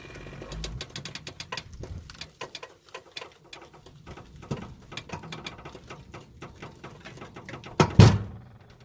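Irregular light clicks and knocks, with one loud thump a little before the end.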